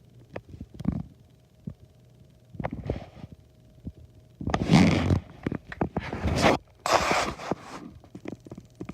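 K'NEX plastic parts being handled: irregular small clicks and rattles, with louder scraping rustles about halfway through and again a couple of seconds later.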